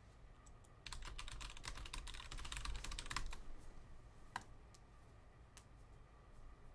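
Typing on a computer keyboard: a quick flurry of key clicks for a couple of seconds, then a few scattered keystrokes.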